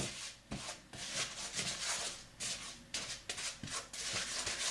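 A hand mixing caster sugar, cinnamon and flour around a plastic bowl: a quick, repeated gritty rubbing, about three strokes a second.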